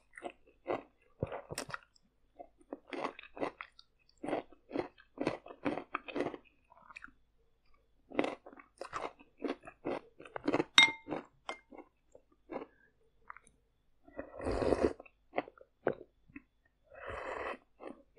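Close-miked mukbang eating of stir-fried noodles: quick runs of wet, smacking chews. About eleven seconds in there is a sharp clink with a brief ring, and near the end two longer slurping sips of soup.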